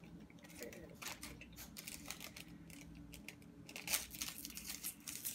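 Crinkly plastic wrapping of an LOL Surprise accessory packet being pulled open by hand: a run of short crackles and rustles, loudest about four seconds in.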